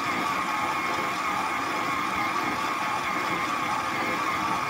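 Electric stand mixer running steadily at a raised speed, its motor giving an even whine as the dough hook kneads bread dough.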